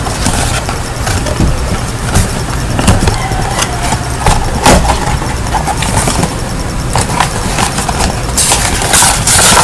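Retail CPU box and its contents being handled: scattered clicks and knocks, with a louder rustle of packaging about nine seconds in, over a steady low rumble.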